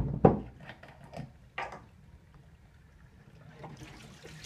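Tap water running over a collodion glass-plate negative in a stainless steel sink, rinsing off the fixer, with two sharp knocks as the plate is handled right at the start and a few lighter clicks after. The water is a faint, steady splash under the handling sounds.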